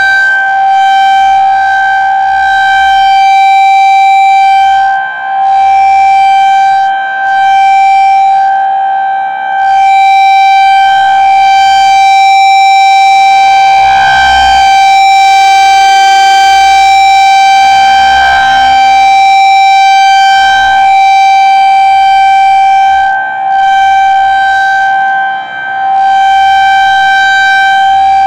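Federal Signal 2001-SRN outdoor warning siren sounding a steady, high-pitched, loud tone during a routine test. Its loudness dips briefly a few times.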